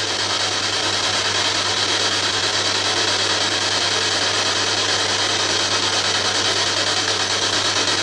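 Ghost box (spirit box) putting out steady, loud radio static as it scans through radio stations, with a low hum underneath.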